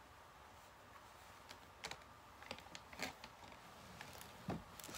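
Faint, scattered soft clicks and rustles of hands adjusting a knit beanie on the head, pulling the fabric and brushing through hair. The strongest come about three seconds in and again near the end.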